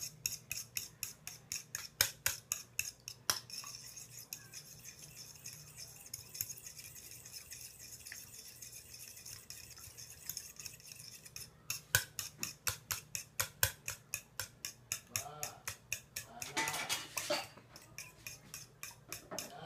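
Eggs being beaten by hand with a utensil in a plastic bowl: the utensil clicks against the bowl a few times a second, goes softer and steadier for several seconds in the middle, then clicks again.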